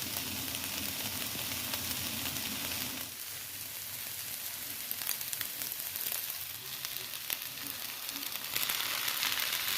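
Food sizzling as it fries in a hot pan, a steady crackling hiss, with a few sharp clicks scattered through it.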